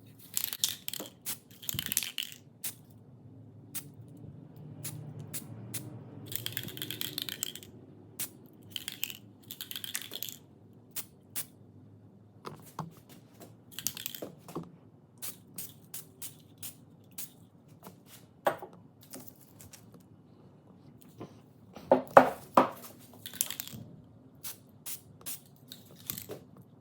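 Workshop work on metal parts: scattered clicks and clinks, with a few hissing or scraping bursts of a second or two in the first half and a cluster of sharp, loud knocks about 22 seconds in.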